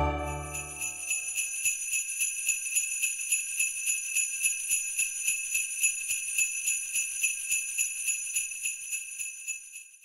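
Jingle bells shaken in a steady rhythm, about four shakes a second, fading away and stopping just before the end, while the last chord of a holiday music track dies out in the first second.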